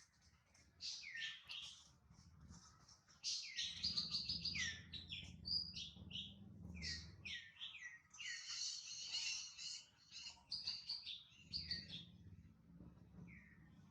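Baby monkey crying in a rapid string of short, high, chirping squeals that curve downward in pitch, busiest through the middle. Low rumbling noise sits beneath the calls in two stretches.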